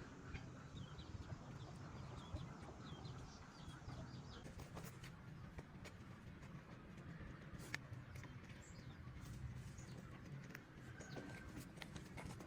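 Faint bird chirps over a low steady rumble, with scattered sharp clicks in the second half.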